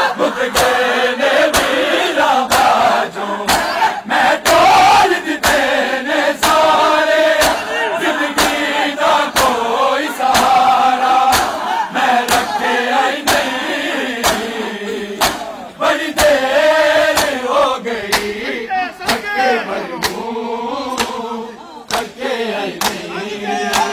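A crowd of men chanting a noha in unison, with sharp slaps of open hands on bare chests (matam) beating a steady rhythm of about two strikes a second.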